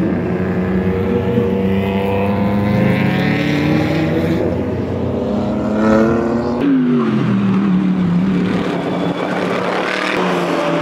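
Race car engines running at speed on the circuit, with one car passing by about six and a half seconds in, its pitch falling as it goes.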